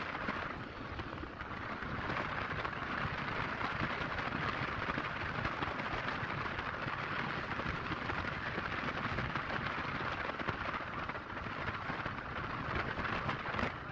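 Large river in flood rushing steadily: a dense, even noise of moving water.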